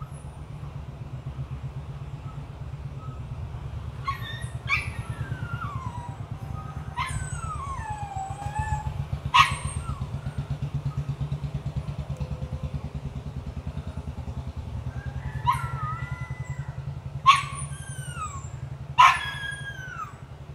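A dog barking and yelping about seven times, each bark sharp at the start and sliding down in pitch, the loudest ones near the middle and end. Under it runs a steady low drone like a motor running.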